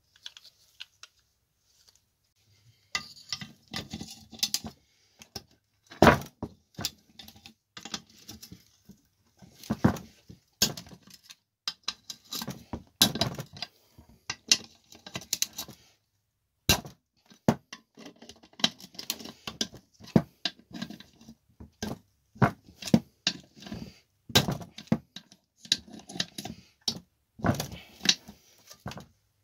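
Metal engine parts and hand tools being handled on a workbench, with irregular clinks and knocks that start a few seconds in.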